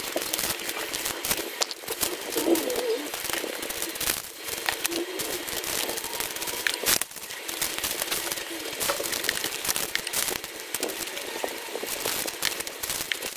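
Small plastic bags of plastic beads crinkling and rustling as they are handled and set into a plastic drawer, with many small clicks and taps. A few faint, low cooing calls sound in the background.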